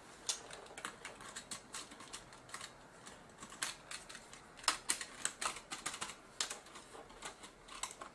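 Irregular small plastic clicks and taps from hands handling a JVC GY-HD201E camcorder and pressing its buttons, a few a second at uneven spacing.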